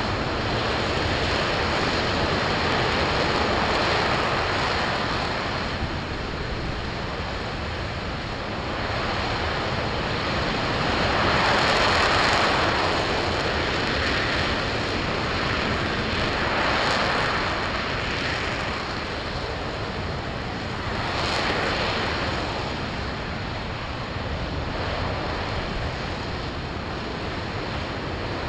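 RS-25 liquid-hydrogen/liquid-oxygen rocket engine firing in a ground hot-fire test: a steady, loud rushing noise with no pitch to it, swelling and easing several times.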